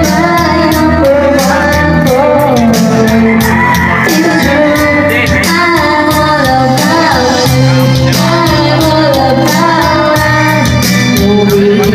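A song with singing over a steady beat, played loud.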